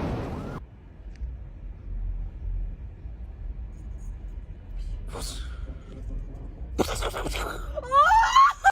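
The tail of a thunderclap dies away in the first half-second, leaving a low, steady rumble. A few short scrapes and clicks follow, and near the end a voice gives a loud exclamation that slides up and down in pitch.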